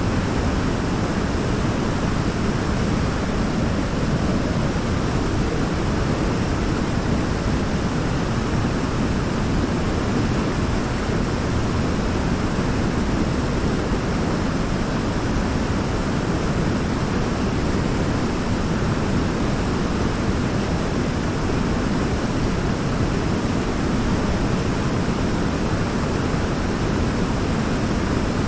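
Waterfall: river water pouring over a large rock in a steady, unbroken rush with a deep low rumble.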